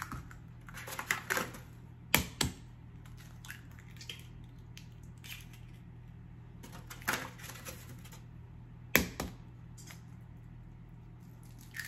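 Eggs being cracked into a stainless steel stand-mixer bowl: sharp taps of shell on the rim, several in quick pairs, every few seconds, over a low steady hum.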